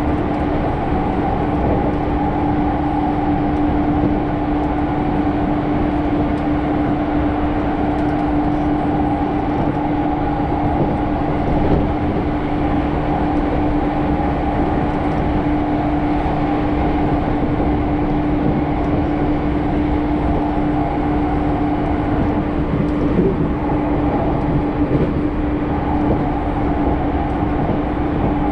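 Cabin noise of a commuter electric train running at a steady speed: a continuous rumble from the wheels and running gear with a steady hum underneath.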